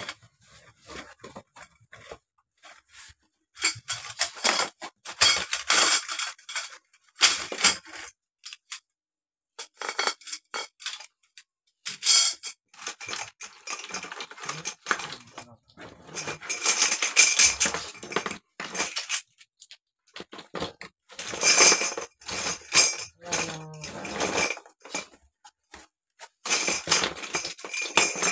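A shoe-rack kit being unpacked by hand: cardboard and plastic wrapping rustling and scraping in bursts, with light clinks of the plastic connectors and metal rods, broken by two short pauses.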